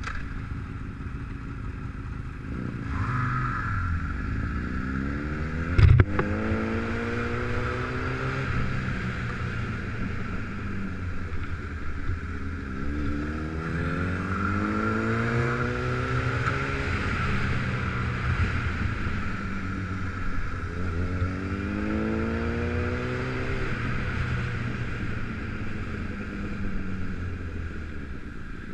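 Motorcycle engine pulling away and accelerating three times, its pitch rising with each pull, over a steady rush of wind noise. A single sharp knock about six seconds in.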